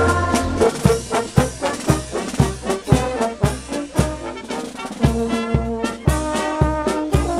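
Marching brass band playing a march: trombones and tubas/sousaphones holding chords over a steady bass drum beat about twice a second.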